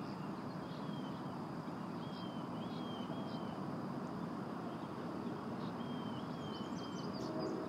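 Outdoor ambience: a bird gives short chirps, a few times in groups, over a steady background hiss, with a faint steady high tone behind.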